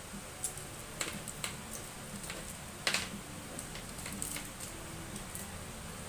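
Scattered light clicks and taps of a plastic laptop case and a screwdriver being handled, the loudest a sharp double click about three seconds in.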